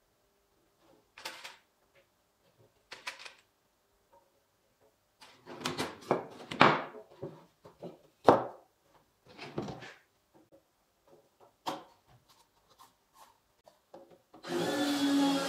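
Pine boards being handled and set into place: scattered wooden knocks and scrapes, with one sharp knock about halfway through. About a second before the end a cordless drill starts up, driving a screw into the pine box corner.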